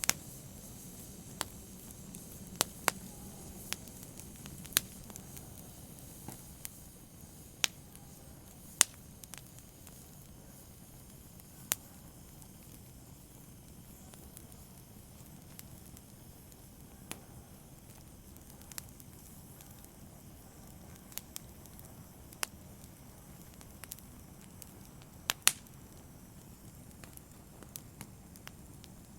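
Open fire burning and crackling: sharp, irregular pops and snaps over a low steady hiss, with a couple of louder pops about nine seconds in and near the end.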